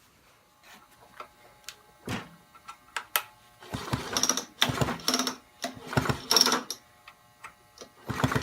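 Homelite Big Red XL chainsaw's recoil starter rope being pulled several times in quick succession, the engine turning over without firing, with the spark plug out for a spark check. Light handling clicks come first, and the pulls start about halfway through.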